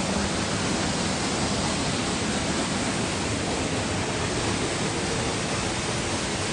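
A waterfall making a steady, loud rush of falling water, with no let-up.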